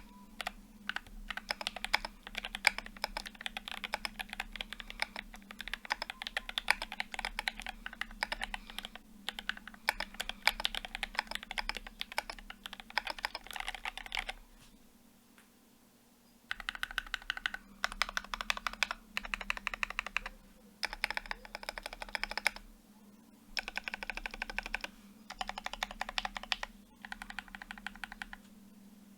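Typing on a Quasi Alice mechanical keyboard with a brass plate, lubed Gateron Black Ink linear switches and GMK keycaps. Fast, continuous keystrokes for about fourteen seconds, a pause of about two seconds, then several short bursts of rapid keystrokes.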